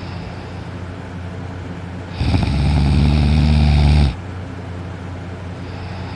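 A sleeping person snoring loudly. One long, low, rattling snore starts about two seconds in and lasts about two seconds, with softer breathing near the start and near the end.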